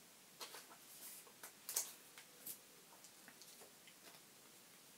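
Faint, scattered ticks and light taps of Yu-Gi-Oh trading cards being handled and shuffled between the hands, busier in the first half and sparser later.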